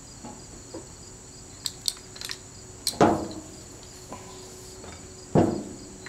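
Fuel transfer tank's hose and pump nozzle being coiled up and stowed: a few light clicks, then two heavier clunks about three and five seconds in. Insects trill steadily throughout.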